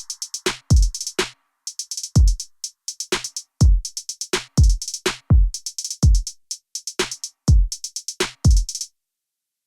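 Electronic background music: a drum-machine beat of deep kicks with a falling pitch and quick clusters of hi-hat ticks, cutting off suddenly near the end.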